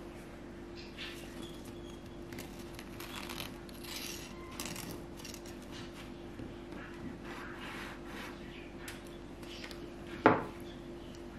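Kitchen knife slicing through a cupcake in its paper liner on a wooden cutting board: soft scraping and rustling of the blade and paper, with one sharp knock on the board about ten seconds in.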